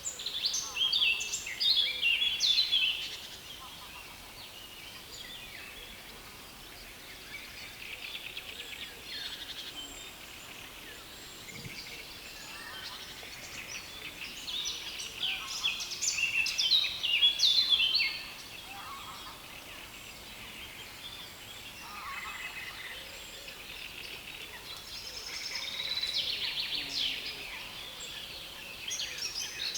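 Songbirds in a reed bed singing dense, rapid, scratchy phrases in three loud bouts, with quieter song in between over a steady background hiss.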